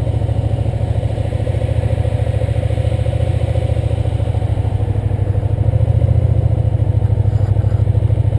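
Motorcycle engine running at low revs with a steady, rapid throb as the bike is ridden slowly. It gets slightly louder about five seconds in.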